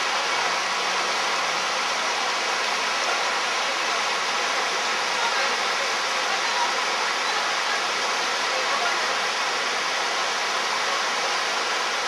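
Fast river water rushing and churning over rocks, a steady, unbroken rush.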